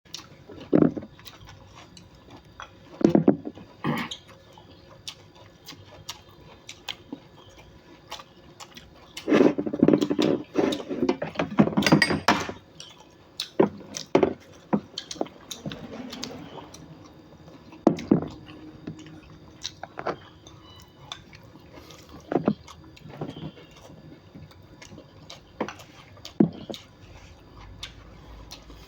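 Kitchen food-prep noise: scattered sharp knocks and clicks every second or two, with a busier stretch of clattering about a third of the way in.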